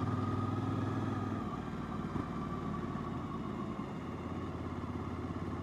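Suzuki V-Strom 1000's V-twin engine running steadily as the motorcycle is ridden at an easy pace.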